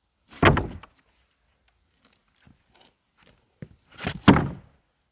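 Two loud thunks, about half a second in and about four seconds in, with a few light knocks between.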